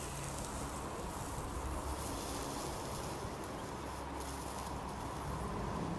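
Quiet, steady outdoor nature ambience: an even hiss with no distinct events standing out.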